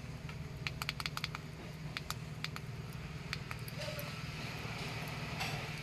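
Burning charcoal in a metal grill crackling, with irregular sharp pops, mostly in the first half, over a steady low hum. A soft hiss rises near the end.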